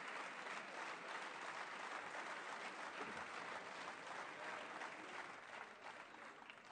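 Applause from deputies in a parliamentary chamber, a dense patter of many hands that thins out and stops near the end.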